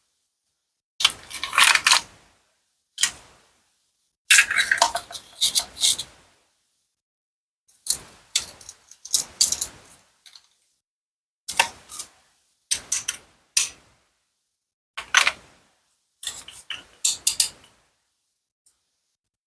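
A toy knife cuts through plastic and wooden toy fruit, with sharp clicks and scrapes as the pieces come apart and clatter. The sounds come in a series of short bursts with silent gaps between them.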